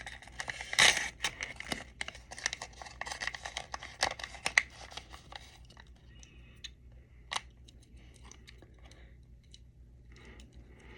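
Small plastic wrapper being torn open and crinkled by hand, dense crackling for about five seconds, then fewer, sparser crinkles and one sharp click.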